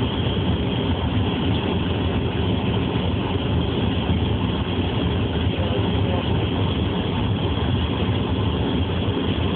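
Car driving, heard from inside the cabin: a steady low engine drone and road noise.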